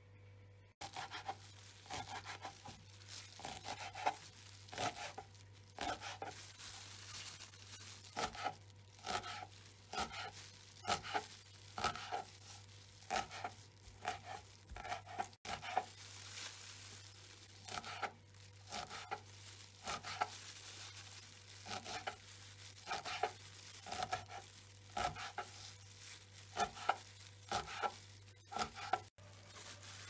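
Kitchen knife chopping stinging nettle leaves on a plastic cutting board: a long run of repeated, irregular cutting strokes.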